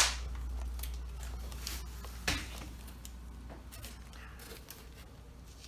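Packing material rustling and scraping as a large packaged piece is handled in its box, with two sharp knocks, one at the start and one about two seconds in, over a steady low hum.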